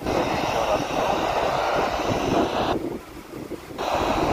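Hiss of an FM amateur-radio transmission from an Icom IC-E91 handheld's speaker. It cuts off sharply a little under three seconds in and snaps back on briefly near the end, as the distant station keys on and off. Wind rumbles on the microphone underneath.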